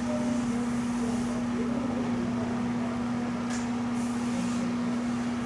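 A blackboard eraser rubbing chalk off a chalkboard in short strokes, over a steady low electrical hum.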